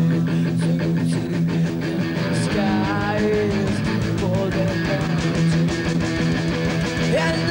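Punk rock band playing live: distorted electric guitars and bass holding loud sustained chords over drums with constant cymbal hits, and a woman singing.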